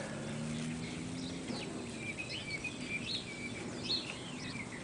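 Birds chirping faintly in the background, short quick calls repeating throughout, with a faint low hum in the first second and a half.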